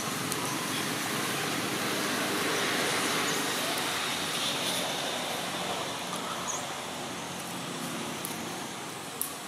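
Steady outdoor rushing background noise, slightly louder a few seconds in and easing off towards the end, with a faint click or two near the end.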